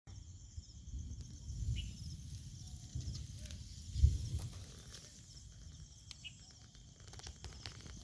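Handling noise on a phone microphone as it is pushed through a leafy bush: low rumble and leaf rustle, with a loud bump about four seconds in and a few light ticks of leaves brushing it near the end. A faint steady high-pitched chirring runs underneath.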